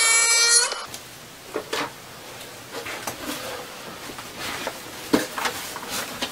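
Chainsaw engine revving hard, cutting off about a second in. Then scattered light knocks and clicks as a plastic toy chainsaw prop is handled.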